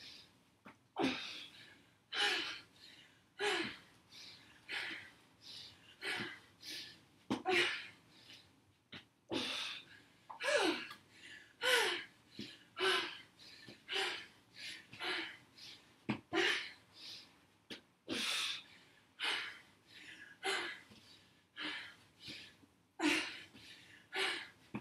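A woman breathing hard under exertion during high-intensity exercise, with sharp voiced gasps and exhales about once a second.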